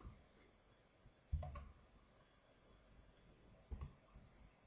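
A few faint computer keyboard keystrokes: a pair of clicks about a second and a half in, then two more near the end.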